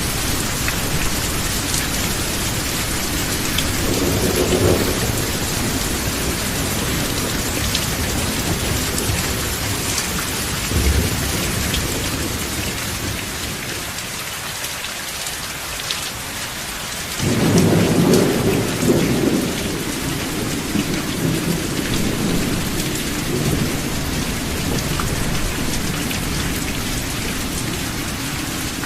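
Steady rain falling, with rolls of thunder. Low rumbles come a few seconds in and again near the middle, and a louder thunder roll breaks in about two-thirds of the way through and rumbles on for several seconds.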